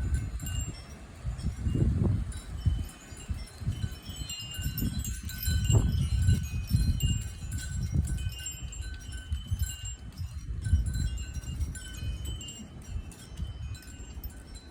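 Wind chimes ringing with several high tones, over gusts of wind rumbling on the microphone.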